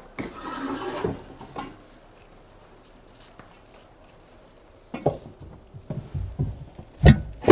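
Packing and handling noises: a scraping rustle, then after a quiet pause a run of knocks and thuds, the loudest near the end, as a machine is handled and set into a wooden box.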